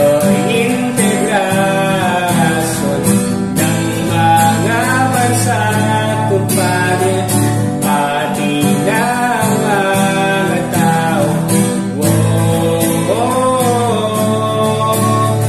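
A man singing a Tagalog song to his own strummed acoustic guitar accompaniment.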